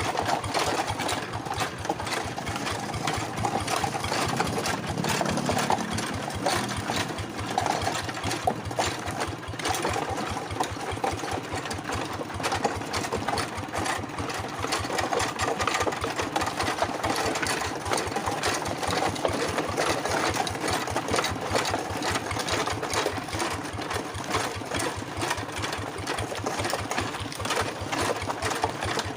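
Two-wheel hand tractor's single-cylinder diesel engine running steadily, with a rapid, even beat of firing pulses.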